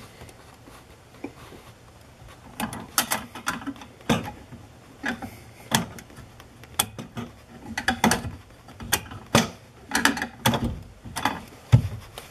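Bathroom sink pop-up drain linkage being worked up and down: the pivot rod rocks in the metal clevis strap and the stopper rises and drops. It makes a string of irregular clicks and clacks, about one or two a second, starting about two seconds in.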